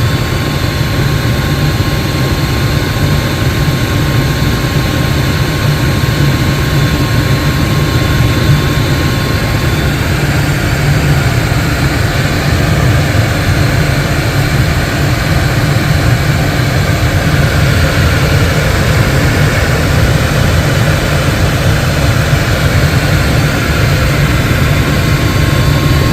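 Furnace running steadily with its burner lit, a constant low rushing noise with no break. The flame is holding and not cutting out, a sign that the new flame sensor and control board have cured the burner shutting off.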